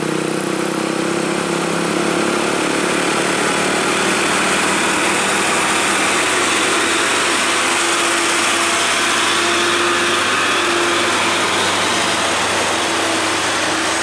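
A heavily loaded cargo truck's diesel engine pulling hard up a steep hairpin climb, passing close by. A loud, steady engine noise with no change in pitch.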